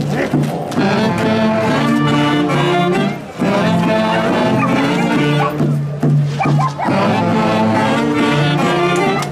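Traditional Andean band music, wind instruments playing a melody in long held notes, with a brief break about three seconds in.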